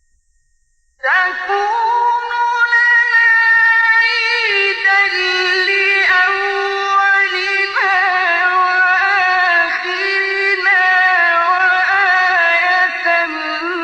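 A man's voice in melodic Quran recitation, beginning about a second in and drawing out long, ornamented notes with only brief breaks.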